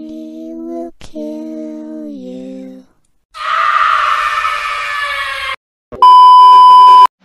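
A long ghostly moan in a woman's voice, broken once and dipping in pitch, then a loud scream lasting about two seconds. Near the end a steady test-pattern beep sounds for about a second and cuts off sharply.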